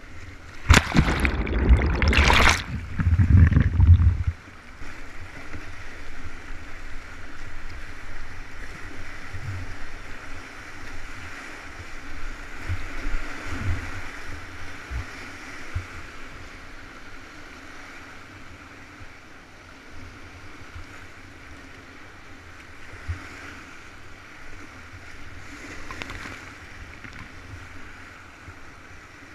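Whitewater rapids rushing and splashing around a kayak: loud splashing in the first few seconds as the boat runs through breaking waves, then a steady rush of moving water that grows quieter in the second half.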